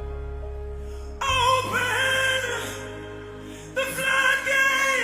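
Gospel worship music: sustained low bass notes fading, then a singing voice with vibrato coming in about a second in and again near four seconds.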